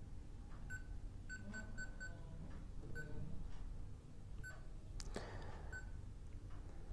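Short, identical high-pitched beeps from an MCOHome GM7H touch-key thermostat as its keys are touched, about eight in all, with a quick run of four about a second and a half in. A single knock comes about five seconds in.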